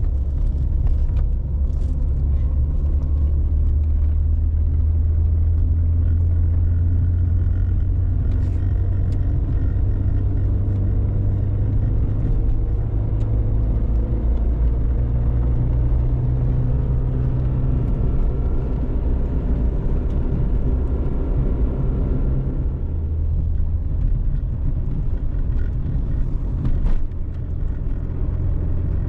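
A car engine running as the car drives: a steady low rumble whose pitch shifts a little up and down along the way.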